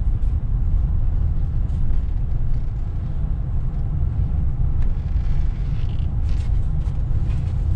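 Car driving slowly on an unpaved sandy track, heard from inside the cabin: a steady low rumble of engine and tyres. A few faint clicks come about five and six seconds in.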